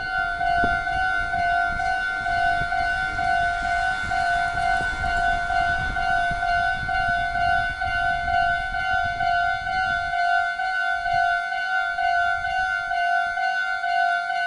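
Railway level-crossing warning bell ringing in a steady, evenly repeating two-tone ding. A low rumble runs underneath and stops about ten seconds in.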